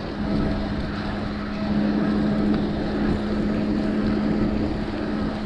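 Wind and ride noise rushing over an action camera's microphone on a bicycle, with a steady low hum that sets in just as it begins.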